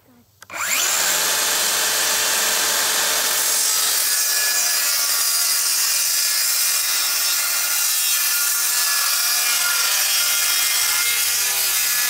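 DeWalt XR circular saw starting up about half a second in, then cutting steadily through a sheet of birch plywood.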